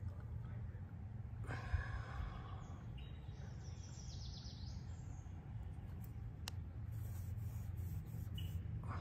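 Outdoor ambience with a steady low rumble, a short rush of sigh-like noise about one and a half seconds in, and a bird singing briefly a few seconds later.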